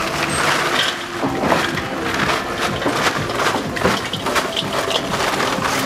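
Charcoal poured from a sack into a kettle grill: a dense clatter of many small knocks as the lumps tumble in.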